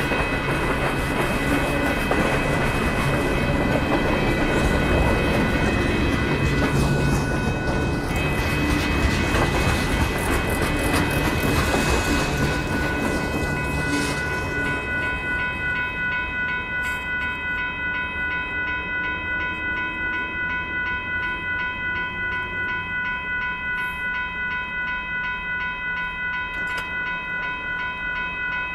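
Freight train cars rolling past with steady wheel-on-rail noise. From about halfway, a railroad grade-crossing bell rings in a steady rapid repeat over the quieter rumble of the train going by.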